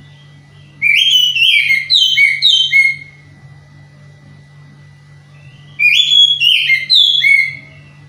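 Oriental magpie-robin singing: two loud phrases of short whistled notes stepping downward, each about two seconds long, a few seconds apart. The song is repetitive, which the keeper takes as the sign of a bird in song but still lacking breeding drive.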